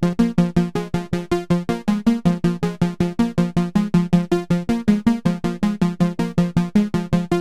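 Novation Circuit Tracks synth playing an arpeggio of short plucked notes, a fast even run of about five or six notes a second, each note dying away quickly.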